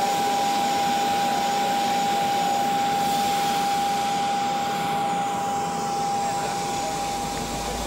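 Jet aircraft turbine engines idling on the apron: a steady rushing noise with a constant high-pitched whine.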